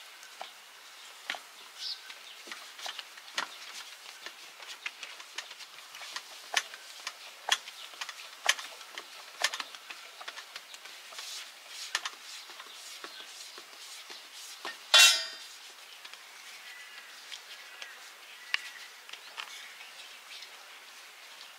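Scattered light clicks and taps of hands shaping dough balls and setting them on large metal trays. About fifteen seconds in comes one loud ringing metal clang.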